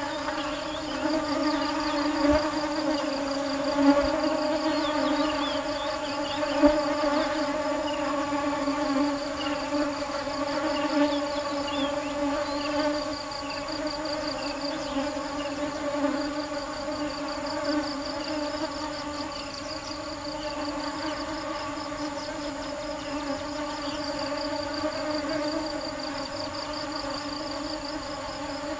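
Honeybees buzzing: a steady, unbroken low drone of wingbeats.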